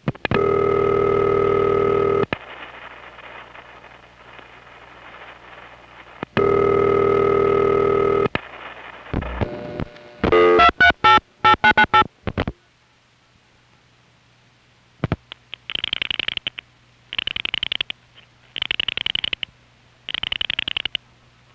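Recording off an old 1970s analog telephone line: a buzzy, harmonic-rich ringback tone rings twice, about two seconds on and four seconds off, with faint line hiss and crosstalk between the rings. Then comes a quick clatter of clicks and short tones at shifting pitches, followed by a run of four short hissy bursts about a second apart.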